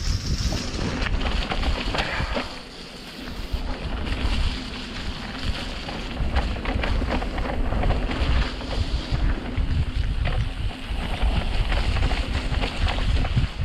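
Wind buffeting the microphone and tyres splashing through mud and water as a mountain bike rides down a wet trail, with frequent knocks and rattles from the bike over rough ground. It eases off briefly about three seconds in.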